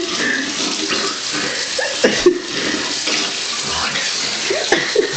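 Steady rush of running water, like a tap left running.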